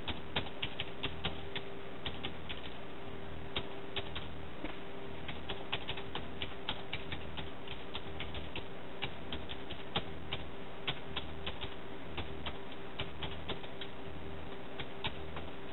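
Typing on a computer keyboard: a run of irregular key clicks, some in quick flurries, over a steady low hum.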